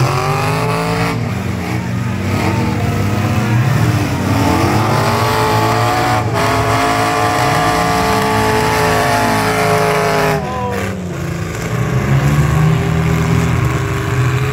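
Demolition derby pickup truck engines revving hard, several at once, their pitch rising, holding high and falling back as the trucks push into each other.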